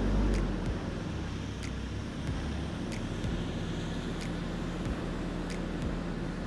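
Off-road truck engine running low and steady, with faint clicks now and then.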